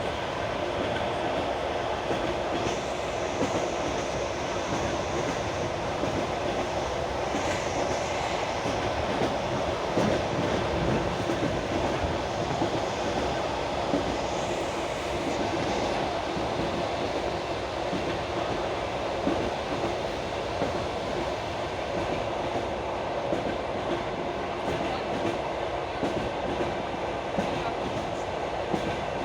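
Passenger train on the Baikal–Amur Mainline, heard from inside the carriage: a steady running rumble with the wheels clicking over the rail joints. A high, thin wheel squeal comes and goes a few times in the first half.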